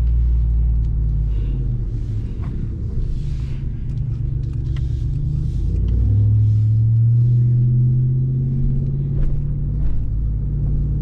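2021 RAM 1500 TRX's supercharged 6.2-litre Hemi V8 running while the truck is driven. The engine note shifts to a higher steady pitch about six seconds in.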